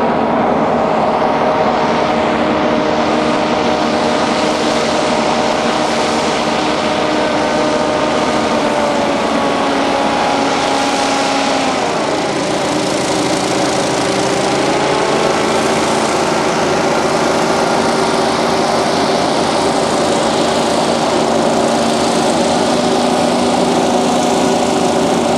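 Rescue hovercraft's engine and ducted propeller running with a steady drone as the craft comes closer. Its pitch drops about halfway through, then holds steady.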